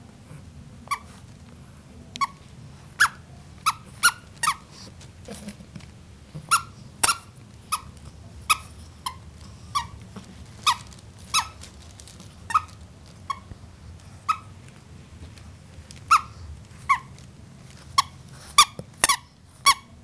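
Bulldog puppy hiccupping: a string of short, squeaky hics, roughly one a second but irregular, with a pause of nearly two seconds about two-thirds of the way through.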